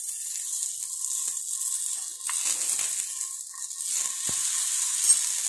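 A whole tomato frying in a little ghee in a nonstick pan, with a steady sizzle. A steel spoon turning it clicks against the pan a couple of times.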